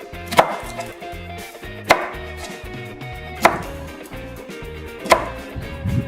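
Knife chopping an onion on a cutting board: four single slow chops, about one every second and a half.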